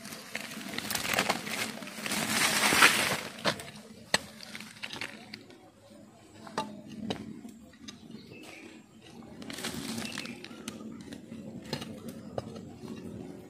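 Rustling and snapping of brush and twigs. There is a loud spell of rustle about a second in, sharp cracks scattered through the middle, and a second, softer rustle near ten seconds.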